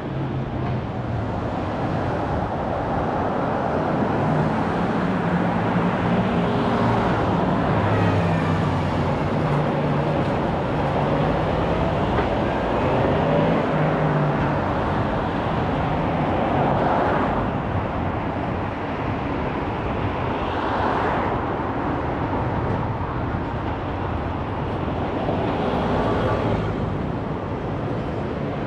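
Busy city street traffic: a steady wash of road noise from passing cars and buses, with an engine hum that shifts in pitch now and then.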